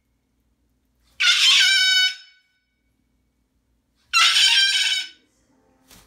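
Moluccan cockatoo screaming: two loud calls of about a second each, one about a second in and one about four seconds in, with silence between.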